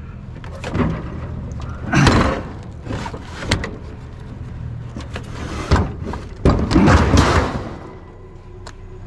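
Scrap being handled and loaded, heard as a run of knocks and clattering rattles. The longest clatter comes about six and a half seconds in and lasts about a second. A steady low hum sits underneath.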